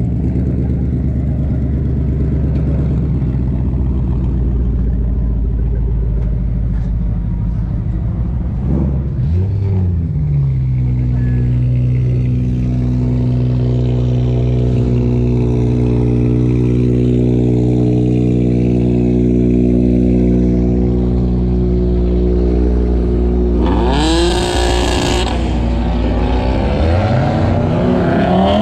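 Car engines running, with one engine revving about nine seconds in and then holding a steady note. A brief harsh rasp comes about twenty-four seconds in, and the engine revs up again near the end.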